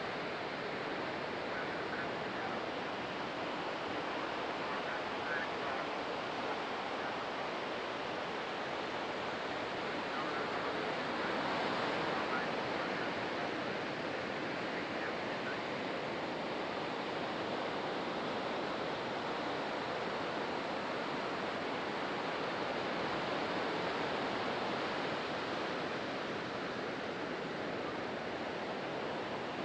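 Ocean surf: waves breaking and washing up a sandy beach in a steady, continuous rush, swelling slightly louder about halfway through.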